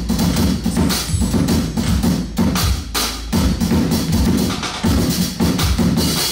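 Sonor drum kit played live: a fast, dense groove of drum strokes with kick drum underneath.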